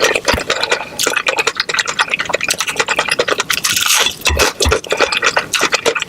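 Close-miked crunching and chewing of crispy fried chicken: a fast, irregular run of sharp crackles with some wet, squishy sounds.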